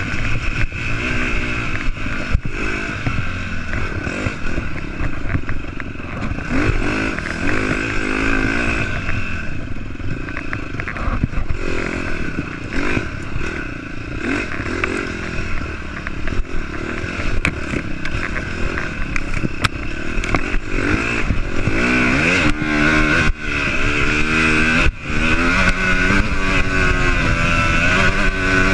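Dirt bike engine revving up and down as the rider races across rough off-road ground, with its pitch rising and falling again and again as it shifts gears. Sharp knocks and rattles come from the bike as it hits bumps.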